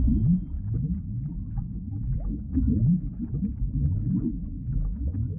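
Low underwater-style sound effect: a stream of short rising glides, one after another, growing fainter toward the end.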